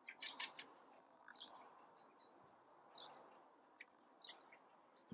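Faint, short chirps of small birds, scattered about once a second with a quick cluster near the start, over soft steady background noise.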